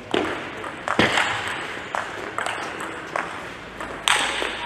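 Table tennis ball being hit back and forth in a rally: a series of sharp clicks of the ball on rubber-faced bats and bouncing on the table, spaced unevenly about half a second to a second apart.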